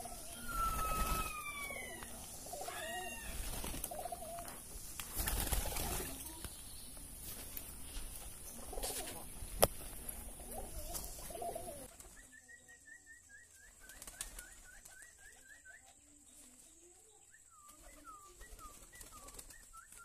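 Pigeons flapping their wings as they crowd in to feed, with a few bird calls over a rough rumbling noise. About twelve seconds in, this gives way to a quieter stretch of quick repeated bird chirps.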